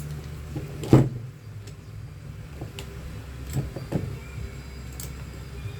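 Knocks and clicks of electric fan motor parts being handled during reassembly, with one sharp knock about a second in and a few lighter clicks later, over a steady low hum.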